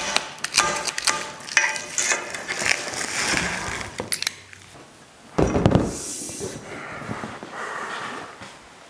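Plastic packaging wrap crinkling and tearing as it is pulled and cut off aluminum raft-frame tubes, with clicks and clinks of the metal tubes being handled. A single thump about halfway through.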